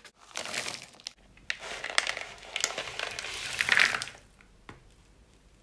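Crunchy, crackling rustle of chopped Crunchie honeycomb and chocolate pieces: a short burst of knife chopping on a plastic board just after the start, then about three seconds of pieces scraping and clattering as they are tipped from a plastic bowl into cookie dough, loudest just before it stops about four seconds in.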